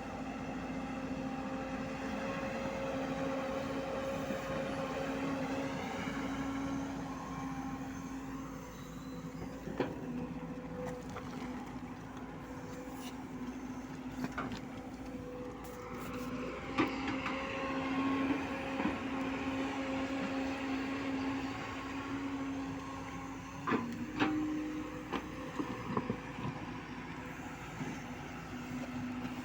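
JCB 140 excavator's diesel engine running steadily under hydraulic load, with a whine that rises and falls in pitch and a few sharp knocks.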